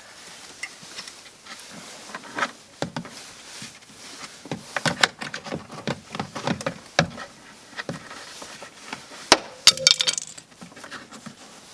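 Irregular clicks, taps and light clinks of small hard parts being handled while a car door speaker is fitted into the door, with its mounting bolts. The loudest run of sharp clicks comes about nine to ten seconds in.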